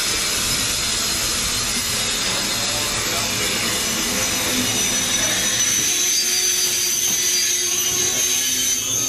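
Steady, loud hiss of steam from a 4-8-4 steam locomotive moving slowly, with a thin high whistling tone coming through about halfway.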